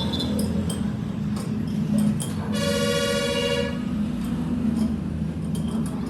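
Steady low mechanical hum with scattered light clicks, and a single horn-like honk about a second long near the middle.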